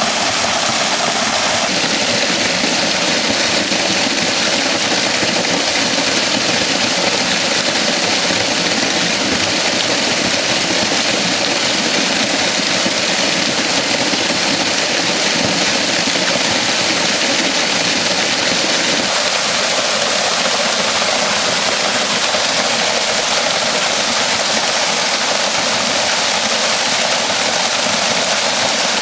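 Small waterfall in spate after heavy rain, water pouring into a loch: a loud, steady rush of water noise.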